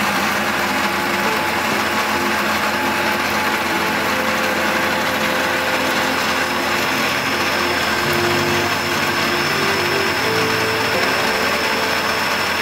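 Electric countertop blender running steadily, its blades churning a fruit drink in the jar; a thin high whine joins partway through.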